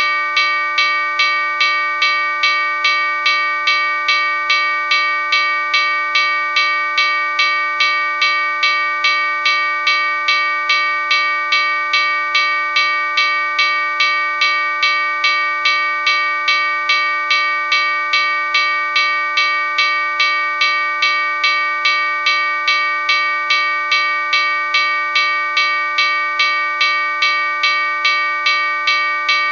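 Railroad crossing bell ringing continuously, struck in an even rhythm of about two strikes a second, with its ringing tone held between strikes.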